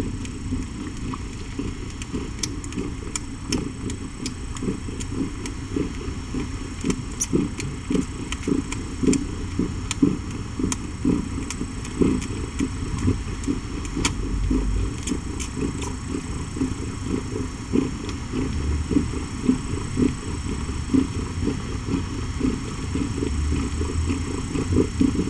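A mother cat purring steadily and low while nursing her kittens, with scattered faint clicks over it.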